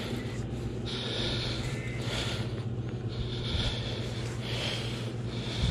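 Steady low hum of the bass boat's motor, with short hissing bursts about once a second on top.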